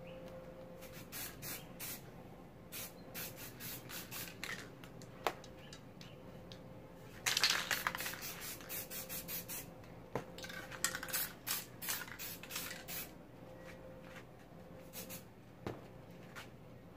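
Aerosol spray paint can sprayed in many short hissing bursts, with one longer, louder burst about seven seconds in.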